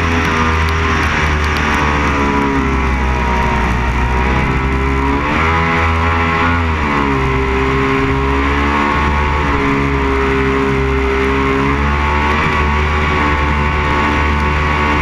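Background music with guitar and a steady heavy low end, its sustained notes changing every few seconds.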